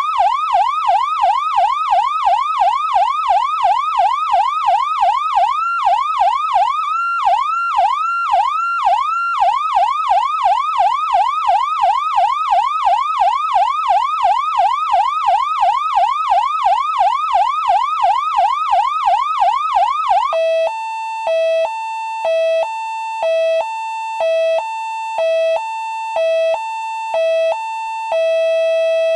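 Older Federal Signal PA300 electronic siren, MSB model, sounding through its 100-watt speaker. It runs a fast yelp of about three rising-and-falling whoops a second, with a short stretch of higher, broken sweeps around seven to nine seconds in. About twenty seconds in it switches to a hi-lo two-tone, alternating between two steady pitches, and near the end it holds the lower tone.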